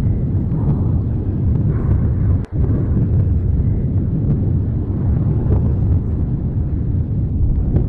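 Etna's Voragine crater in eruption, its lava fountain making a loud, continuous deep rumble. The sound cuts out for an instant about two and a half seconds in.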